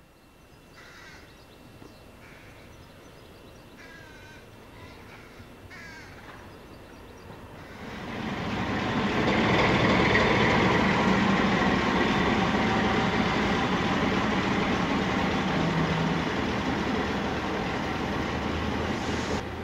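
MaK diesel locomotive V65.12 running as it moves along the depot tracks; its engine comes in loud and steady about eight seconds in. Before that, a few short bird calls over faint background.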